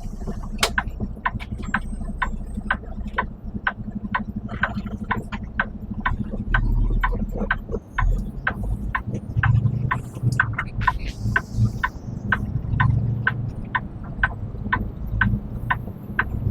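Truck running, a steady low rumble, overlaid by sharp regular clicking about three times a second.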